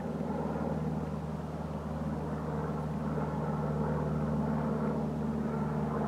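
Steady low engine rumble with a constant hum, unchanging throughout.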